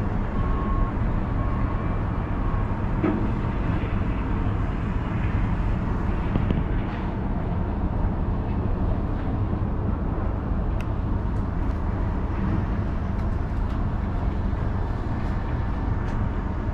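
Steady low rumble and hum inside a moving Emirates Air Line cable car gondola travelling along its cable, with a few faint ticks in the second half.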